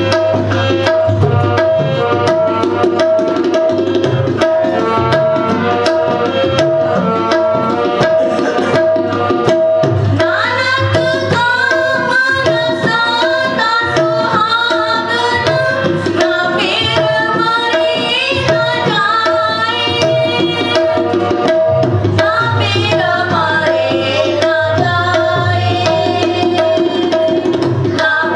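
Devotional song played on a harmonium, with a drum keeping a steady rhythm. A girl's voice comes in singing about ten seconds in.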